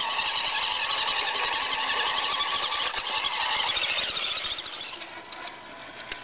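High-pitched whine of a radio-controlled scale crawler's 55-turn motor and Stampede gearbox as it drives close by, fading sharply about four and a half seconds in as it moves away.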